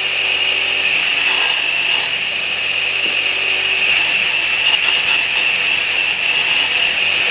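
An electric power tool running at a steady high whine against wood, with a few short louder scratchy patches. At the very end it is switched off and its pitch falls as it winds down.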